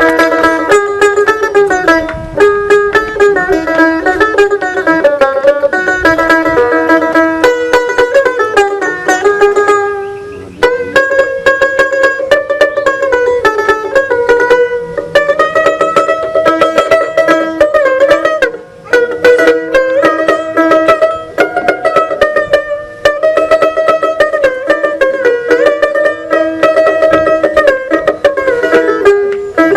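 Dotara, the Bengali folk long-necked plucked lute, played solo in a fast run of picked notes with sliding pitch bends. The playing breaks off briefly about ten and nineteen seconds in.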